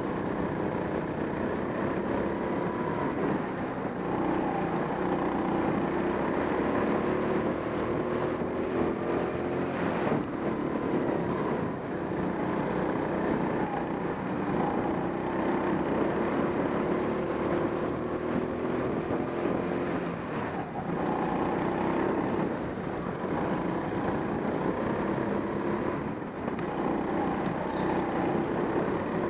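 Indoor rental go-kart at speed, heard from on board: its motor runs steadily, the pitch rising and falling as the kart accelerates down straights and slows for corners, over rushing wind and track noise.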